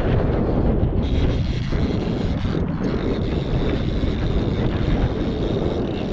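Wind rumbling on the microphone over a boat's outboard motor running steadily.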